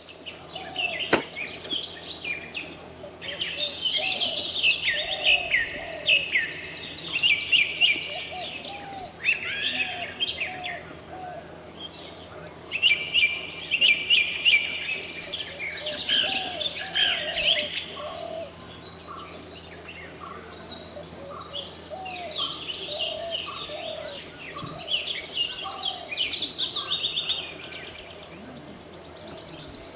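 Several songbirds singing and chirping, with quick high trills and chirps that come in bursts every few seconds, over softer, lower chirps.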